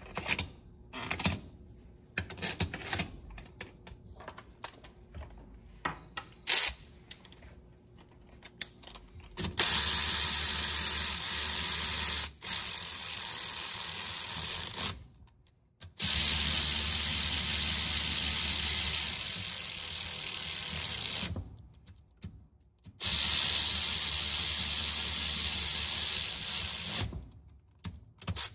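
Light clicks and clinks as bolts are set into an aluminium balance shaft and oil pump housing by hand, then a cordless electric ratchet runs four times, a few seconds each, driving the bolts down before they are torqued.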